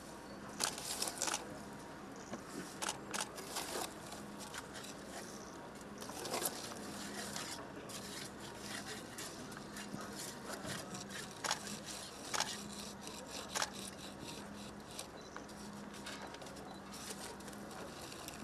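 Steel masonry trowel scraping and spreading cement mortar along the top of a concrete block wall, with a wooden float worked against the wall face: irregular scrapes and clicks over a faint steady hum.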